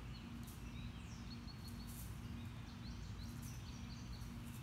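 Small songbirds giving short, high chirps again and again over a steady low hum.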